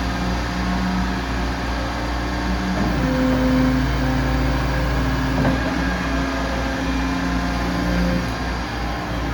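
Yanmar B95W wheeled excavator running, a steady engine hum with tones that shift in pitch a few times as the machine works.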